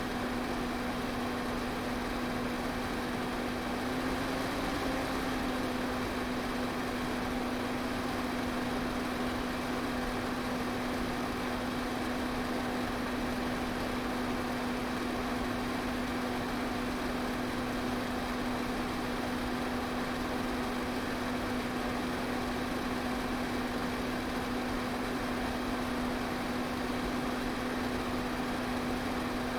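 Electric pedestal fan running steadily: an even rush of air over a constant motor hum, which wavers slightly about four seconds in.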